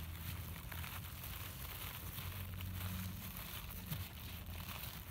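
Tissue paper rustling and crinkling softly as a cardboard toilet paper roll is rolled up in it, over a low steady hum.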